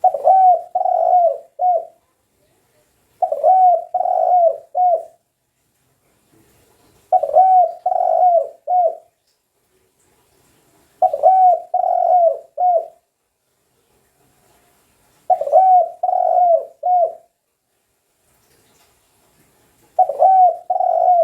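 Spotted dove (tekukur) cooing: six phrases of several coos each, about two seconds long, repeated roughly every four seconds.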